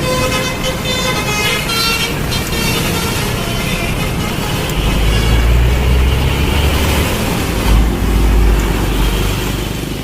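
A box truck's telolet horn playing its multi-note tune, which stops about two and a half seconds in. Then road noise continues, with a heavy low rumble from about five seconds to near the end.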